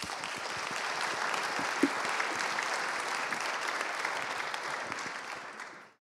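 Audience applauding, a steady clapping that dies away near the end.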